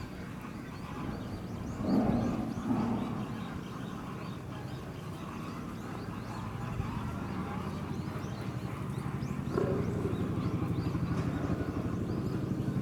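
Lions calling: two short low calls about two seconds in, and another starting near ten seconds.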